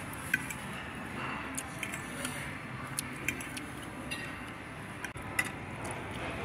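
Metal fork clinking against a ceramic dinner plate, a handful of sharp clicks spread over several seconds, over steady restaurant room noise.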